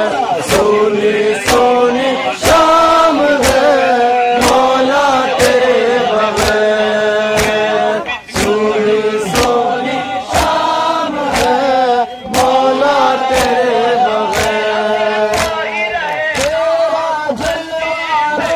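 A group of men chanting a noha, a Shia lament, in unison, over a steady beat of hands striking chests (matam) about once a second.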